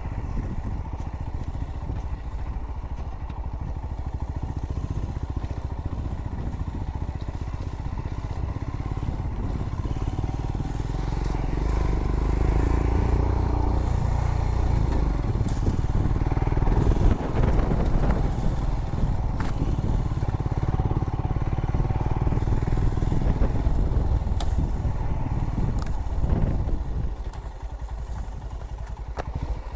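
Royal Enfield Himalayan's single-cylinder engine running under load at low speed, getting louder from about eleven seconds in and easing off near the end, with scattered knocks and clatter over the rumble.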